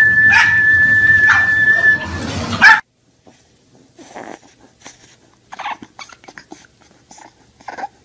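A clatter of many pugs running together, with a steady high tone held over it for about two seconds. It cuts off suddenly, and then a bulldog puppy whimpers and yips in short, scattered cries.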